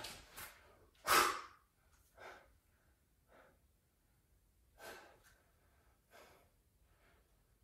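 A person breathing hard under the strain of holding an isometric plank. There is one sharp, loud exhale about a second in, then four fainter breaths a little over a second apart.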